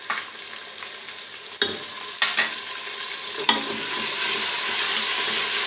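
Chopped onions frying in hot oil in a metal pot, stirred with a metal spoon that knocks against the pot three times. About two-thirds of the way through the sizzling grows louder and stays up, as garlic-ginger paste goes into the hot oil.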